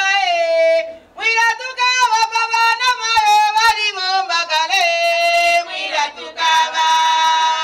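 Women singing a traditional Bemba chilanga mulilo song in bending, ornamented phrases, with sharp percussive strokes in the middle and a long held high note from about six seconds in.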